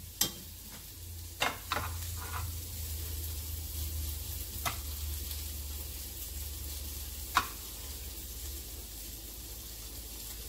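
Stainless steel tongs clinking lightly against a ceramic plate and a nonstick pan about six times as broccoli is served, over a steady low hum.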